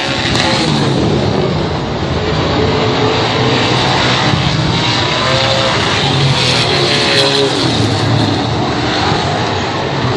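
Race car engines running hard at high revs, their pitch rising and falling as they lap the track; the engine sound stays loud and steady throughout.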